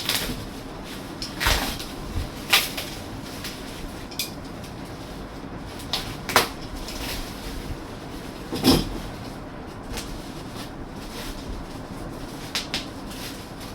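Packaging being opened and model-plane tail parts handled: a run of separate knocks and rustles, about six sharp ones spread out, the loudest a little past the middle.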